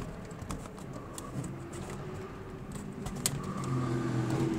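A steady motor-like hum that grows louder toward the end, with light clicks and rustles of a wire being worked through plastic trim, and one sharper click about three seconds in.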